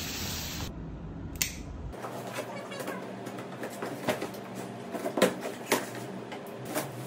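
Cardboard shipping boxes being handled and the top one opened: rustling and scraping of cardboard and packing tape with scattered sharp knocks and clicks, the loudest about five seconds in.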